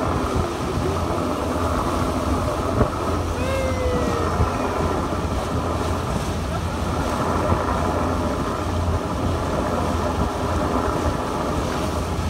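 Wind buffeting the microphone on the deck of a moving boat, over the steady low hum of its engine and the rush of its wake.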